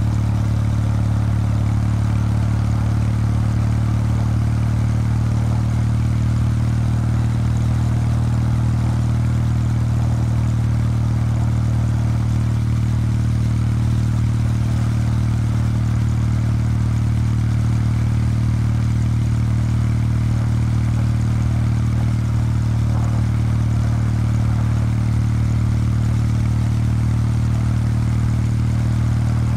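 Kawasaki W800 Street's air-cooled parallel-twin engine through its stock exhaust, running under way at a steady engine speed, its note holding one even pitch throughout.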